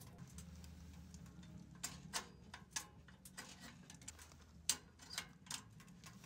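Wood fire crackling inside a small steel camping stove: a handful of sharp, irregular snaps and pops, the loudest a little before the end.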